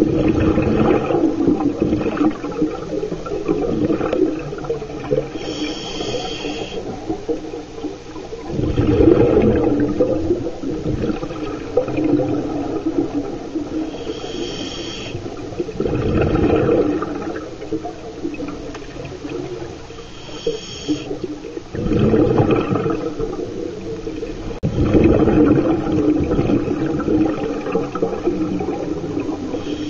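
Scuba diver breathing through a regulator, heard underwater: every six or seven seconds a short, high, whistling hiss of an inhale through the regulator, then a couple of seconds later a loud rush of exhaled bubbles.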